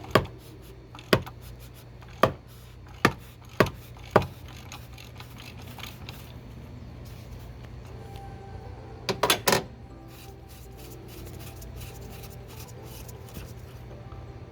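Six sharp metallic clicks about a second apart, then a quick cluster of three or four near the ten-second mark: hand tools knocking against metal while the cartridge oil filter housing is being unscrewed.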